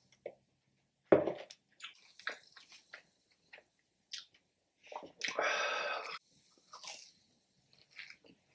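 Close-up eating sounds: a loud thump about a second in as the plastic Slurpee cup is set down on the table, small clicks and mouth sounds, a rough sound lasting about a second around five seconds in, then a bite into a corn dog and chewing near the end.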